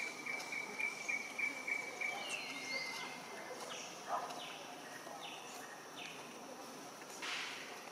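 Insects trilling in a steady high chorus; a second, pulsing trill stops with a short falling glide about three seconds in, followed by a few short falling chirps.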